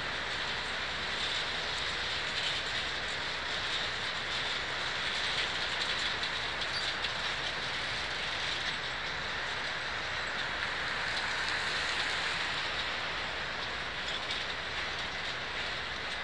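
Freight train's gondola cars rolling past: a steady rush of steel wheels on rail, with faint clicks of the wheels passing over the rail joints.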